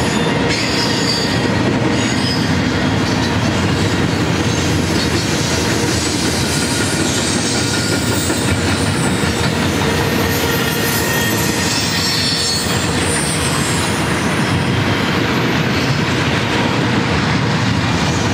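Double-stack container train's well cars rolling past: a steady rumble of steel wheels on rail, with a high-pitched wheel squeal that comes and goes.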